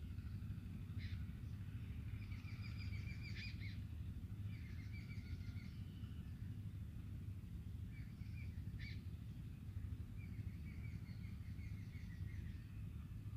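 Faint bird chirps, coming as several short runs of quick high notes, over a steady low background rumble.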